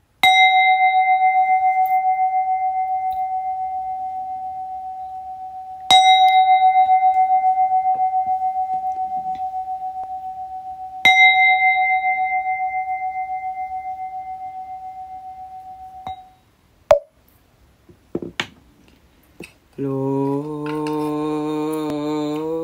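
Buddhist bowl bell struck three times, about five seconds apart. Each stroke rings as one steady tone with a wavering pulse and fades slowly, marking the opening of the liturgy. A few short knocks follow, then chanting begins about twenty seconds in.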